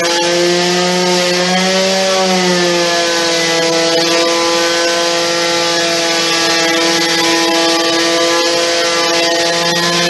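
Electric sander scrubbing over MDF with its connected extraction vacuum running: a steady motor whine over a rough sanding noise, the pitch dipping slightly about two seconds in.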